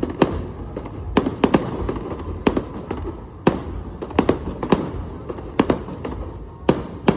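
Fireworks display going off: about ten sharp bangs at uneven intervals, sometimes two close together, over a continuous low background noise.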